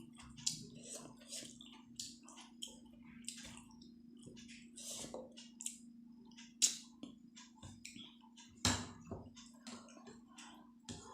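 Close-miked eating: wet chewing and slurping of momos and soup, with many irregular clicks and smacks, one louder smack near the end. A faint steady hum sits underneath.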